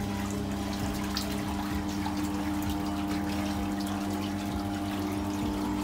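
Whirlpool bath running: the jet pump's steady hum under churning water.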